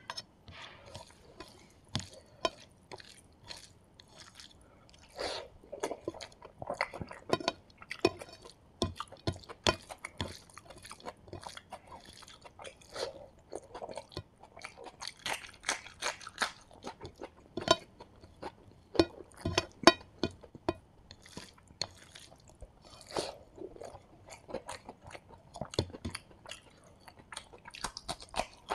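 Close-miked hand-eating sounds: fingers squishing and mixing rice with beetroot thoran and buttermilk on a paper plate, and crunchy chewing of mouthfuls. The sounds come as irregular wet clicks and crackles, a few of them sharp.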